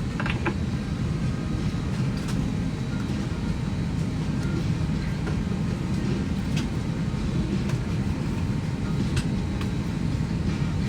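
Steady low rumble inside an Airbus A321 airliner cabin before pushback, with a few faint clicks.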